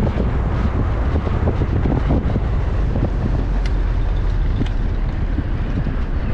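Wind buffeting the microphone: a steady, heavy low rumble with faint scattered ticks.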